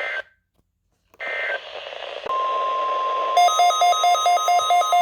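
Weather radio emergency alert tones. A burst of digital SAME header data ends, there is a second of silence, and a second short data burst plays over radio hiss. About two seconds in the steady single-pitch NOAA Weather Radio warning alarm tone begins. About a second later a shrill electronic alarm starts beeping over it, about four beeps a second.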